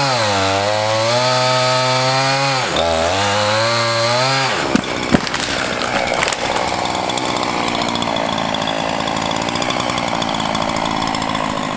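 Two-stroke chainsaw cutting wood, its engine pitch dipping under load and recovering several times. About five seconds in come two sharp knocks, and the sound turns to a rougher, steadier buzz.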